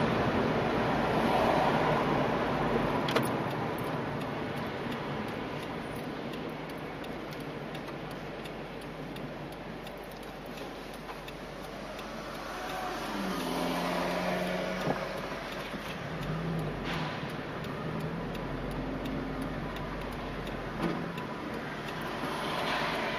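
Car running in city traffic, heard from inside its cabin: road and engine noise that dies down over the first few seconds as it slows. A pitched engine hum rises about halfway through and carries on.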